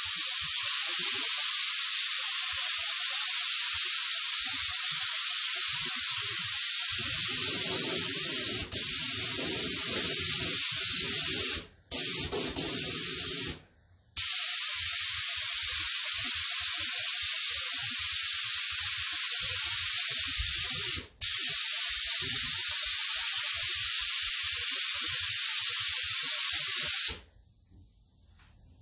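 Paint being sprayed onto motorcycle fairing panels: a long, steady hiss of spraying, let off briefly three times and stopping near the end.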